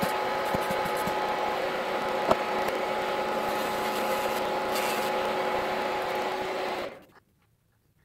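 Small electric rotary tool running with a steady whine, grinding plastic away from the base of a 1/64 scale model car; it cuts off suddenly about seven seconds in.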